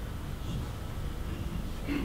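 Room noise: a steady low rumble, with a brief faint sound near the end.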